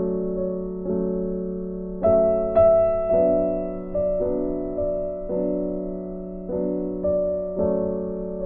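Background music: soft piano chords struck about once a second, each ringing and fading away before the next.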